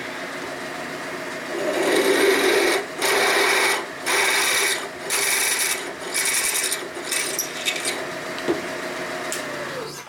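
A 27/64-inch twist drill turning slowly in a machine spindle, cutting a tap-drill hole for a 1/2-13 thread through a welded aluminum case boss. The motor hums steadily, and from about two seconds in the cutting noise comes and goes about once a second. The motor winds down and stops at the very end.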